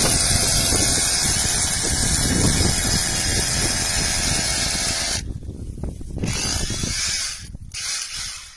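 A cordless rotary hammer drill hammers and bores into hard volcanic rock. It runs as one long continuous noise for about five seconds, stops, then runs again in two shorter bursts near the end.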